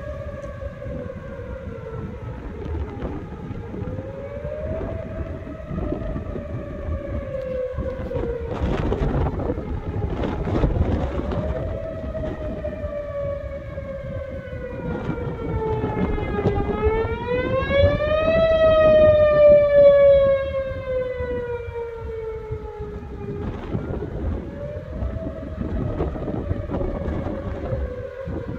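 Outdoor tornado warning siren wailing, sounding a tornado warning. Its pitch rises quickly, then sinks slowly, repeating every six or seven seconds, and it is loudest about two-thirds of the way through. Wind gusts buffet the microphone underneath.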